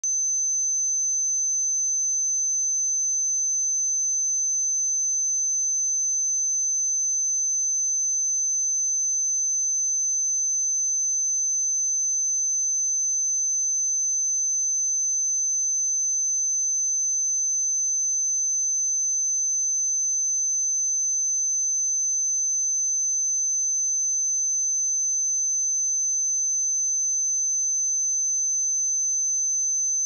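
Pure 6152 Hz sine-wave test tone, a single high-pitched steady whistle held at constant level, with no other sound.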